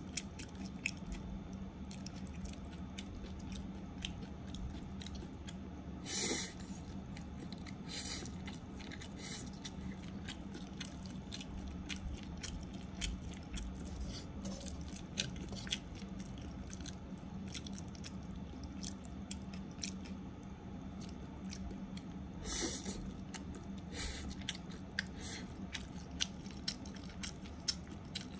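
Spaghetti with egg, onion and ham frying in a wok: a light, steady crackle of hot oil, with a low steady hum underneath. Two louder brief bursts come about six seconds in and again about twenty-two seconds in.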